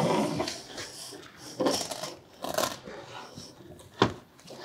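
Rigid entry door panel of a Flagstaff tent camper being slid out and handled into the doorway: scraping and rubbing against the frame and canvas, a few short knocks, and a sharp knock about four seconds in as it meets the door opening.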